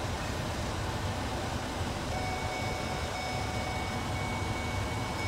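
Steady car-cabin noise from a car creeping in slow traffic: a low engine and road rumble with an even hiss. A faint steady high whine joins about two seconds in.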